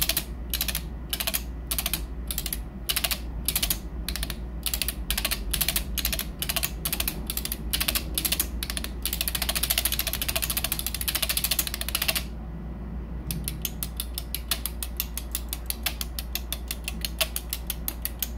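Signalex 402L electromechanical seven-segment displays flipping their segments: a clatter of sharp clicks, about two a second at first, then a fast run of rapid clicking, a short pause about twelve seconds in, and quicker clicking again to the end.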